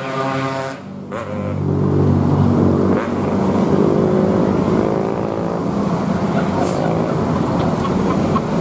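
Large coach bus's diesel engine accelerating as the bus pulls away, its note rising; it drops off briefly about a second in, then climbs and sways in pitch again.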